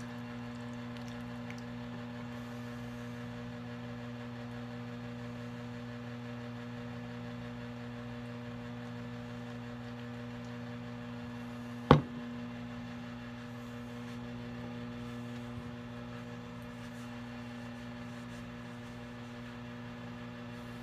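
Steady electrical mains hum, with a single sharp knock about twelve seconds in.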